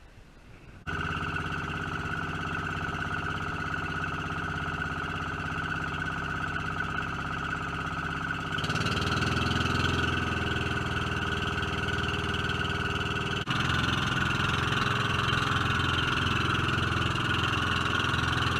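Engine of a wooden outrigger boat (bangka) running steadily under way: a constant drone with a high whine. It starts suddenly about a second in, and its tone and level shift abruptly twice, about 8½ and 13½ seconds in.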